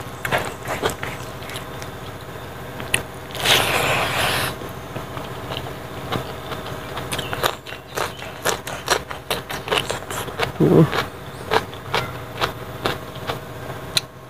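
Close-miked eating: fingers mixing rice and pork, then crunchy chewing of raw cucumber and turkey berries with many sharp crunching clicks. A short burst of hissing noise comes about three and a half seconds in, and a brief hum from the eater near eleven seconds.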